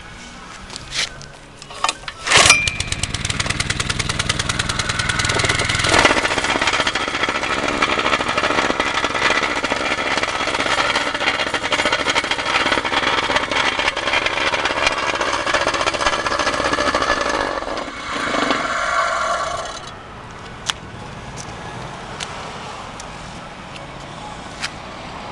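Itabashi IV-40 vibrating plate compactor being started and run: a few clicks, then the engine catches about two and a half seconds in and runs steadily for some fifteen seconds. Its note changes briefly, then it stops about twenty seconds in, leaving low background noise.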